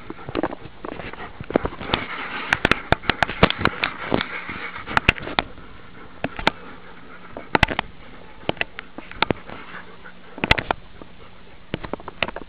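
Dogs panting and scuffling close by as they play, with irregular sharp clicks and knocks, thickest between about two and five seconds in.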